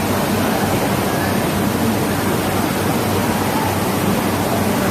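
Loud, steady hiss of background noise with a faint low hum underneath.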